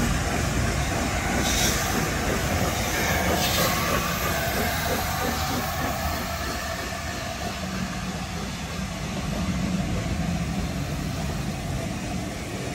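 LNER A4 Pacific steam locomotive No. 60007 Sir Nigel Gresley and its tender passing at close range over a level crossing, followed by its coaches rolling past, with a steady loud rumble of wheels on rail and a run of wheel clicks over the rail joints.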